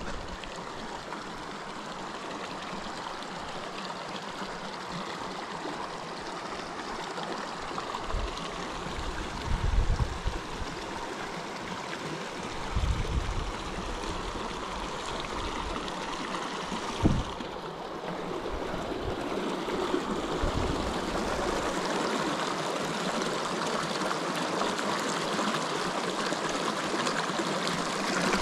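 Shallow water running and trickling over rocks in a steady rush, growing a little louder in the second half. A few low thumps break in about a third and two thirds of the way through.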